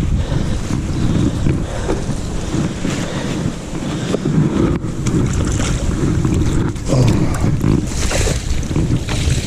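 Wind buffeting the microphone: a heavy, fluttering rumble throughout, with a few scattered knocks and a brief hissing patch near the end.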